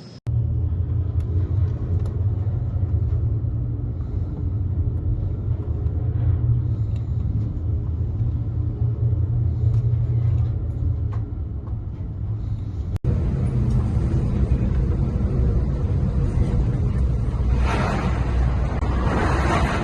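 Boat engine running with a steady low rumble, briefly cut off once about two-thirds of the way through. A rushing burst of noise rises over it near the end.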